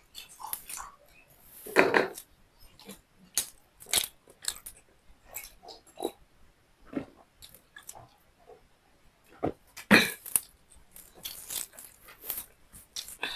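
Close-miked chewing and lip-smacking of a person eating beef liver with rice: irregular wet mouth clicks and smacks, with two louder ones about two seconds in and near ten seconds.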